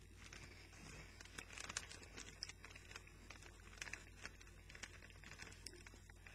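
Faint, irregular crackling and crunching of crunchy puffed corn onion-ring snacks (Funyuns) being chewed.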